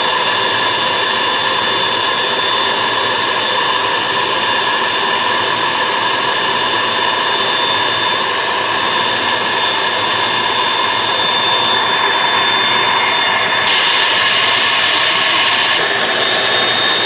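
Electric stand mixer running steadily, its twin beaters whirring through cake batter with a constant motor whine.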